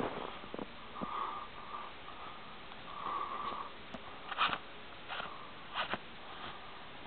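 A person sniffing and breathing close to the microphone in cold air. There are a few short, sharp sniffs, the loudest about four and a half seconds in and a quick pair near six seconds, over a steady hiss.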